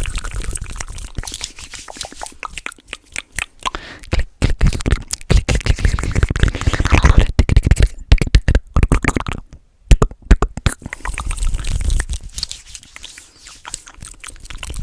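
Fast, aggressive ASMR mouth sounds made right at the microphone: rapid runs of clicks and smacks with brief breaks about four and ten seconds in.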